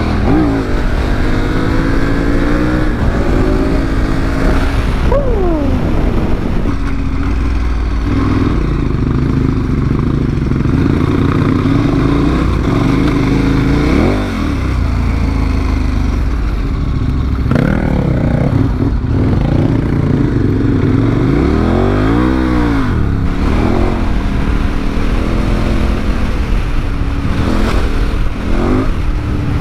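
Engine of a heavy adventure motorcycle under way, its note rising and falling as it accelerates and eases off through the gears.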